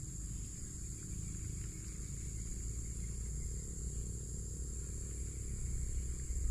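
Outdoor ambience: a steady high-pitched insect drone over a low rumble.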